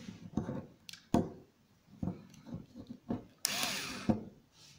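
PROTECO 3.6V cordless screwdriver being picked up and handled on a wooden table: several knocks and clicks, the loudest about a second in, and a short burst of noise lasting well under a second past the middle.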